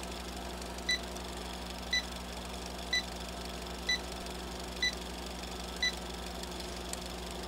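Film-leader countdown beeps: a short, high electronic beep about once a second, seven in all, stopping about a second and a half before the end, over a steady faint hum and hiss.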